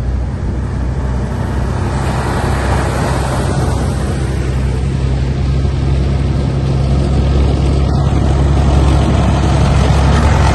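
Military vehicles driving past: an army truck and a tracked armoured vehicle, a steady low engine drone under road and track noise, growing louder as the armoured vehicle comes close near the end.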